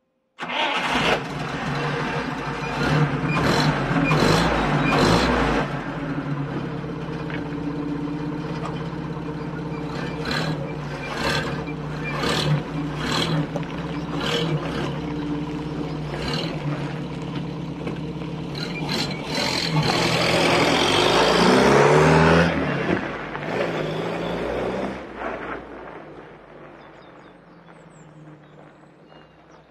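1981 UAZ 452 van's 2.5-litre petrol engine, running on a newly fitted SU carburettor, ticks over steadily with irregular sharp ticks over it, then revs up loudly about twenty seconds in as the van drives off on its first test drive, and fades away into the distance.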